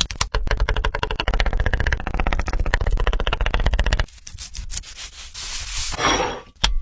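Rapid scraping strokes, about a dozen a second for some four seconds, then softer, slower scraping with one short louder rasp near the end.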